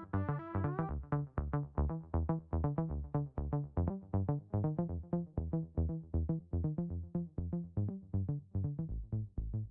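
Electronic music with a fast, steady pulsing beat over synthesizer bass notes.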